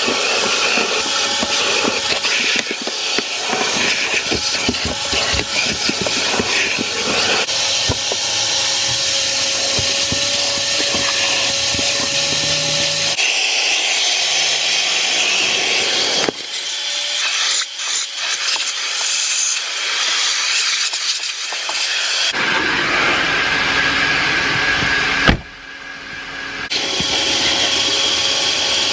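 Vacuum cleaner running steadily with a constant whine, as the inside of a car is vacuumed. There are scattered clicks and rattles in the first few seconds.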